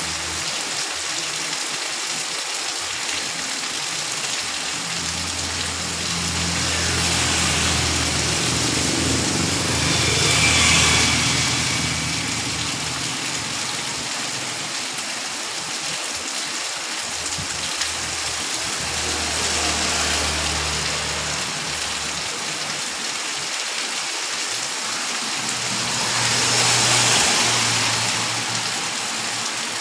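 Heavy rain falling steadily on a street, with motor vehicles passing on the wet road: engine hum and tyre swish swell and fade about four times.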